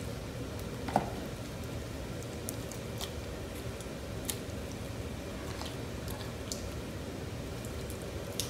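Hands kneading and squeezing sticky Elmer's glitter glue slime: faint wet squishes and small sticky ticks, with one louder tap about a second in.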